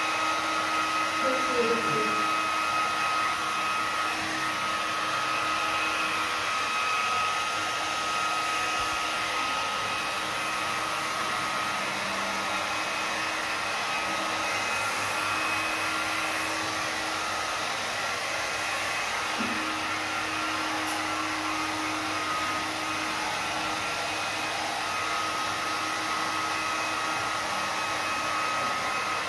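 Handheld hair dryer running steadily, blowing wet acrylic pour paint across a canvas. A steady whine sits over the rush of air.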